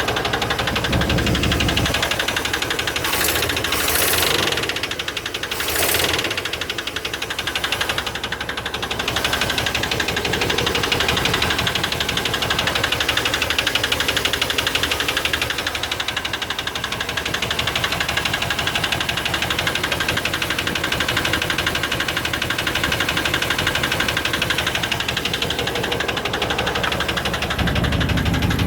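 Chevy 350 5.7 L V8 running with a fast, steady clicking from the top of the engine, which the owner puts down to low lubrication after reassembly. The low rumble is heavier in the first couple of seconds and again near the end.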